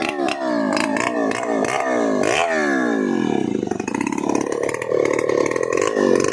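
Stihl 070 chainsaw's big two-stroke engine revved in repeated throttle blips, its pitch climbing and falling again several times. About halfway through it drops back to a lower, uneven running speed.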